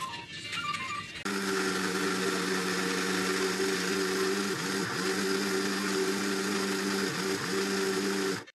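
Mixer grinder motor running steadily as it grinds soaked lentils and red chillies into a coarse adai batter. It starts about a second in, dips briefly in pitch twice, and cuts off suddenly near the end.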